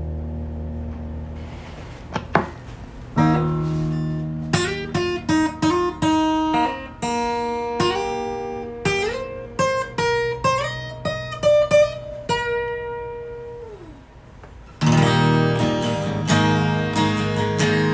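Acoustic guitar playing: a held chord dies away, then a picked single-note melody with slides between notes, ending on a long note that slides down. Loud strummed chords come in near the end.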